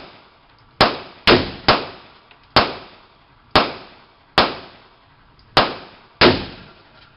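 Pistol gunfire at a shooting range: eight sharp shots fired at an uneven pace, a second or less apart, each followed by a short echoing decay.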